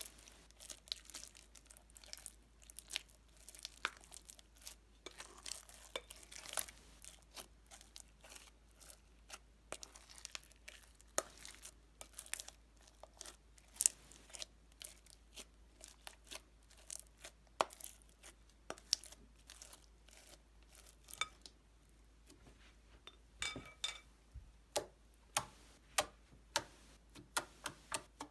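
White slime packed with polystyrene beads being squeezed and worked, giving a dense run of small crackles and pops. Near the end these thin out to fewer, sharper clicks.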